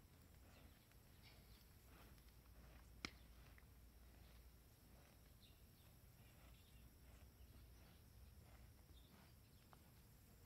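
Near silence outdoors: a faint low rumble with scattered faint ticks and a few small chirps, and one sharp click about three seconds in.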